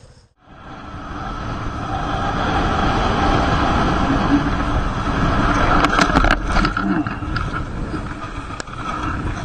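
Motorcycle running with heavy wind noise on a helmet-mounted camera, then a quick cluster of sharp knocks about six seconds in as the bike crashes and goes down on the road.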